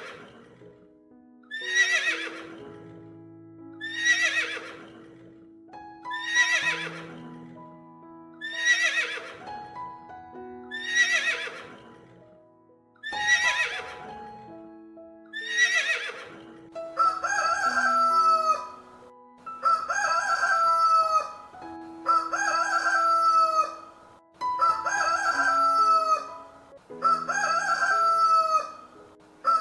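A horse whinnying over and over, short falling calls about every two seconds. From just past halfway a rooster takes over, crowing again and again at the same pace. A simple melody of held notes plays underneath throughout.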